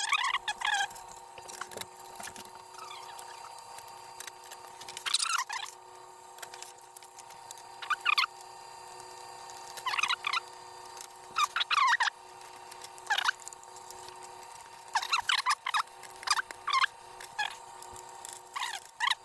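Steady hum of a powered Creality Ender 3 3D printer's fan, with short high squeaky chirps every second or two while the metal print bed is handled and fitted back onto the Y carriage.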